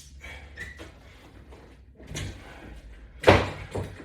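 A loud knock about three seconds in, followed by a smaller one half a second later, over low hum and faint rustling.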